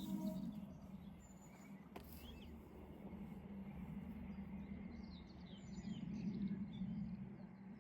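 Small birds chirping and singing over a low rumble that swells and fades, with a single sharp click about two seconds in.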